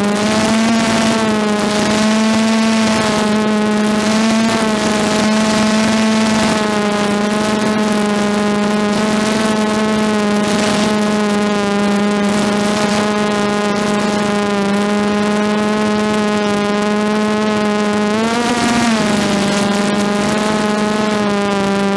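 DJI F330 quadcopter's brushless motors and propellers whining steadily, heard close up from the onboard camera. The pitch wavers slightly with throttle and swells briefly near the end.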